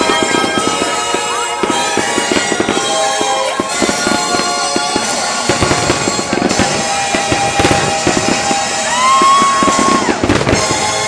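Aerial fireworks bursting in quick succession, many reports and crackles overlapping, over a music soundtrack. A whistling tone rises and holds briefly about nine seconds in.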